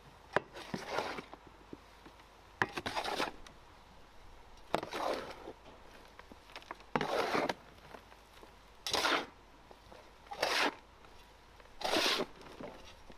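A series of about eight short scraping, rustling strokes, each about half a second long, coming every one and a half to two seconds, as dry material is worked by hand.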